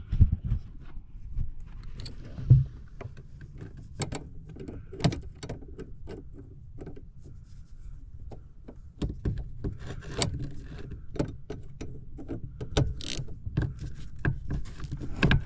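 Metal clinks and knocks of a wrench and T30 Torx bit being fitted to the shifter-cable bracket screws on a Ford Super Duty steering column and turning a loose screw. A denser run of quick clicks comes in the second half.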